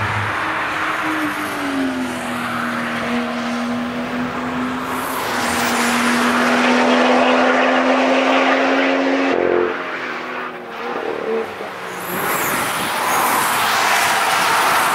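BMW M2's turbocharged straight-six pulling hard through a bend, its engine note holding an almost steady pitch for several seconds before cutting off abruptly about two-thirds of the way in. Near the end a second car's engine rises as it approaches.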